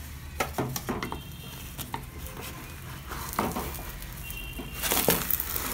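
Wooden spatula scraping and knocking against a non-stick frying pan as an omelette is loosened and turned over: scattered light clicks and scrapes, busiest about five seconds in.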